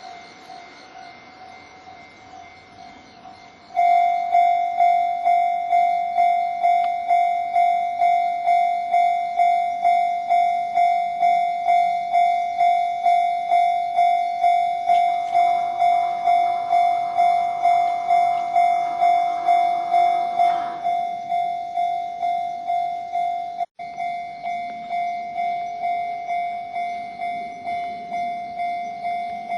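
A Japanese level-crossing warning bell starts about four seconds in, ringing one clanging electronic tone about twice a second. Partway through, a Kintetsu electric train passes under the bell for several seconds.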